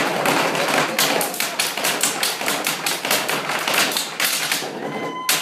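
Stage table percussion: performers drumming on a tabletop with their hands and handheld objects, a fast run of sharp taps and knocks that thins out toward the end.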